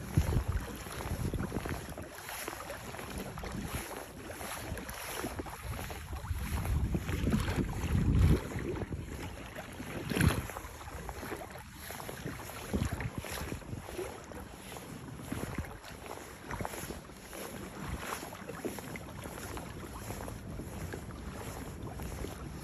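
Wind buffeting the microphone over water lapping and splashing against the Hobie Outback kayak's hull on choppy water, with irregular gusts that swell loudest about eight and ten seconds in.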